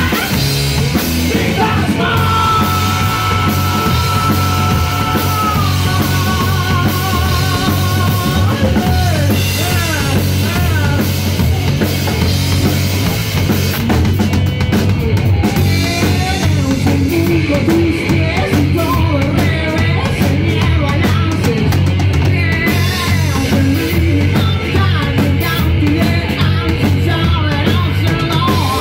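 Live rock band playing: drum kit, electric guitar and electric bass with a singer, loud and steady throughout.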